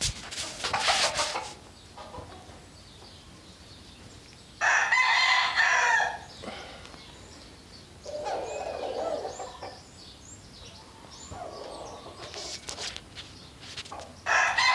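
A rooster crowing: a loud call of over a second about five seconds in, and another starting right at the end, with lower, softer calls in between. Rustling from the camera being handled near the start.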